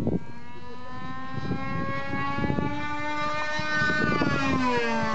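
Radio-controlled model airplane engines whining as the planes dive past, the pitch climbing for about four seconds and then falling away near the end.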